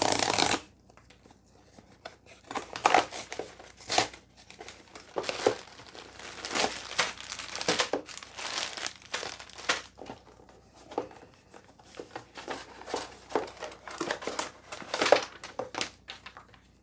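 A cardboard box torn open, loudest right at the start, then irregular crinkling and rustling as plastic bags of parts and the box are handled.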